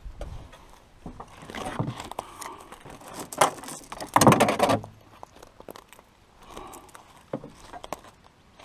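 Loose metal hand tools and chain clattering and jangling in a utility vehicle's tray as they are rummaged through. The clatter comes in irregular bursts and is loudest about three and a half and four and a half seconds in.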